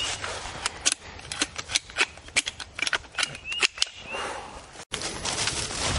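An irregular, rapid run of more than a dozen sharp pops and cracks of mock gunfire, like a cap gun or toy guns being fired, thickest in the first four seconds.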